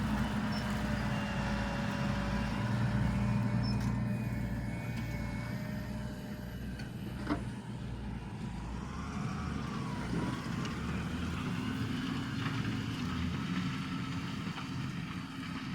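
Deutz-Fahr 6205 RCshift tractor's engine running steadily under load while pulling a three-furrow plough, with one sharp click about seven seconds in.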